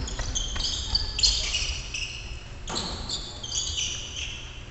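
Basketball shoes squeaking on a wooden gym floor during play: many short, high-pitched squeaks in two flurries. There is one thud, likely the ball on the floor, about halfway through.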